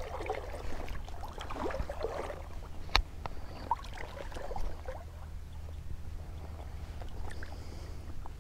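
River water sloshing and gurgling close to the microphone, most busily in the first half, with one sharp click about three seconds in.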